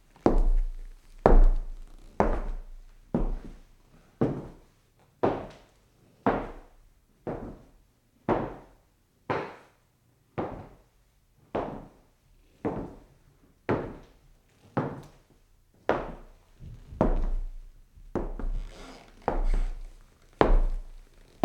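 Footsteps on a wooden floor, heard at a distance: slow, even steps at about one a second, each a dull knock followed by a short echo.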